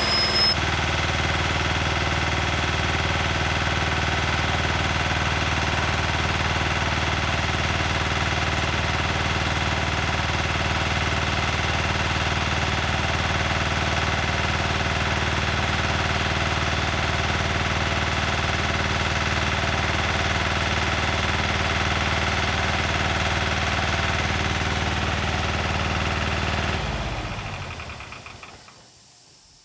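A workshop machine's motor running steadily with a low, even hum and rattle, then switched off and spinning down about two seconds before the end.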